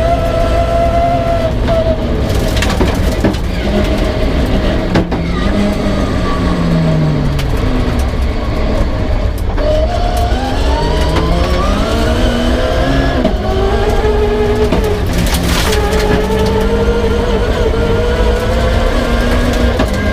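Rear-wheel-drive Peugeot 306 rally car's engine at competition speed, heard on board over constant road rumble. The revs drop a few seconds in, climb hard through the gears around the middle, then hold fairly steady.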